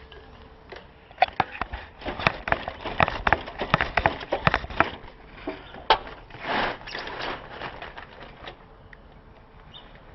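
A run of irregular clicks, knocks and clinks, like hand tools and metal parts being handled during work on a motorcycle's rear wheel, busiest between about one and eight seconds in.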